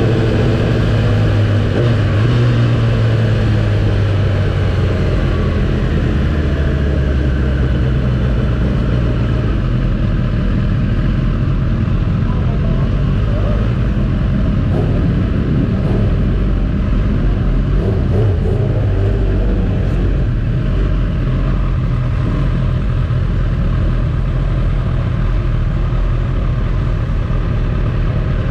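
Sport motorcycle's engine running at low revs as the bike rolls slowly in a low gear; the engine note drops over the first few seconds, then settles into a steady low rumble.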